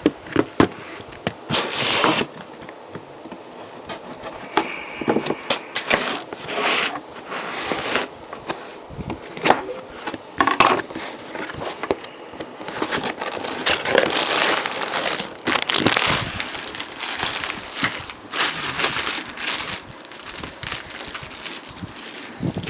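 Packaging crinkling and rustling by hand, with scattered clicks and knocks, as a boxed car radio is unpacked.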